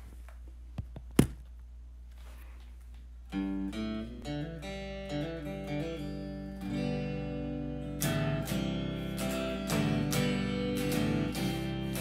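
A low steady hum with one sharp click about a second in; then a guitar comes in a little after three seconds with picked notes, building to fuller strumming about eight seconds in.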